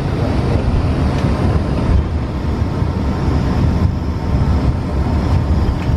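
Steady low rumble of an Embraer ERJ-135 regional jet's turbofan engines heard from inside the cabin as the aircraft taxis, with a faint steady high whine over it.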